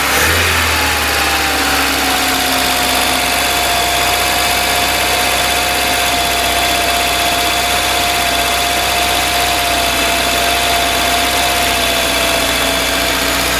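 VAZ-21099's carburettor 1.5-litre four-cylinder engine idling steadily on its first run after a cylinder-head rebuild. A steady whine runs over the engine note, settling slightly in pitch about a second in.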